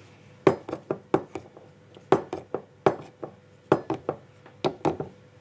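A spoon knocking and clinking against an immersion blender's head and the mixing beaker: a quick, irregular run of sharp taps, beginning about half a second in.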